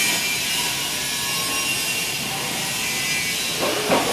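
MIG welding arc crackling and hissing steadily on pipe, with a brief louder sound near the end.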